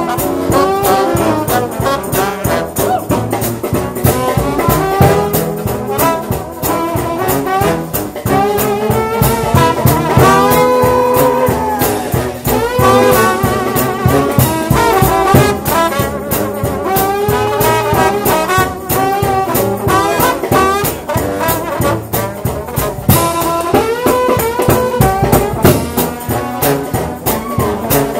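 Gospel shout band music: a trombone-led brass ensemble playing a fast, loud tune over a steady, driving drum beat.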